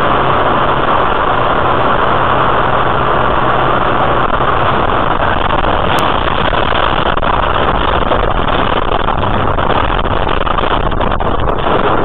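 A loud, steady rush of engine and road noise inside a moving car, picked up by a dashcam's own microphone, with one short click about six seconds in. The noise turns rougher near the end.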